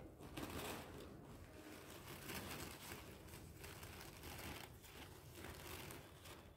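Faint, irregular rustling of a thin printed paper napkin as its layers are slowly peeled apart by hand.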